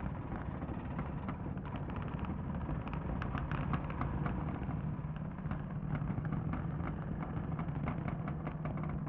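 A backhoe loader's engine running, a low drone with frequent clanks and rattles. The drone settles into a steadier pitch about halfway through.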